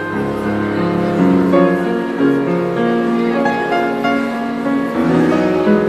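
Live instrumental music with piano prominent, sustained chords and a moving melody playing continuously.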